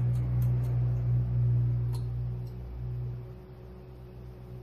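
A low, steady hum that drops in level about three seconds in, with a few faint, light clicks in the first two seconds from fingers handling the small steel parts of an A2 front sight on a rifle barrel.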